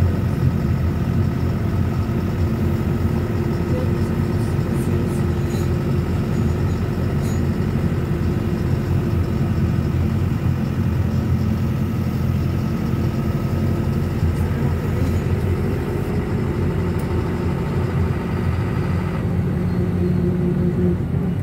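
GAZelle route minibus driving, heard from inside the passenger cabin: a steady engine and road drone. Near the end the engine note shifts and its higher tones drop away.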